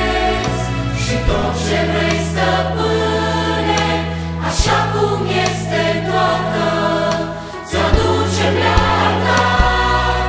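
A mixed adult choir and a children's choir sing together in harmony, backed by piano, held bass-guitar notes and percussion. A few sharp percussion hits stand out, one just after a brief drop in loudness near the end.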